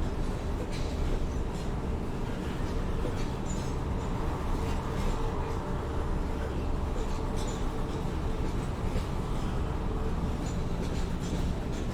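City train heard from a distance, running along the rails: a steady low rumble with a faint held tone and scattered light clicks over it.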